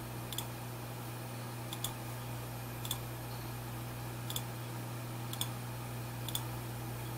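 Computer mouse button clicking six times at irregular intervals about a second apart, over a steady low hum.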